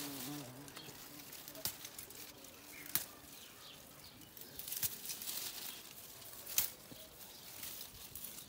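Dried flower heads being picked off a bush and dropped into a plastic bag: a crinkling rustle of plastic and dry stems with several sharp snaps.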